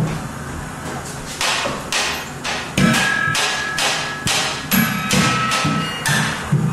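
Improvised percussion on objects: a regular series of sharp knocks, about two a second, some leaving a short ringing tone. Low instrumental tones sound underneath.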